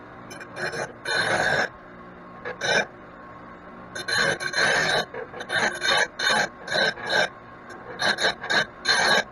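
A metal file rasping across the edge of a steel mower blade off a Kubota BX2380's mid-mount deck, in short irregular strokes, several of them about three a second. The blade edge is being dressed by hand after rock damage, ahead of finish grinding.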